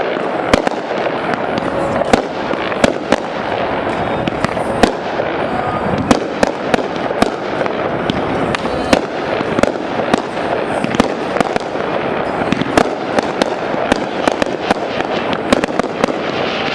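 Fireworks display going off: a continuous dense din of bursts and crackle, with sharp reports several times a second.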